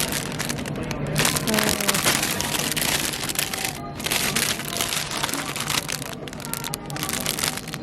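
Plastic produce bag crinkling and rustling as produce is handled and bagged, in many short crackles, with background music beneath.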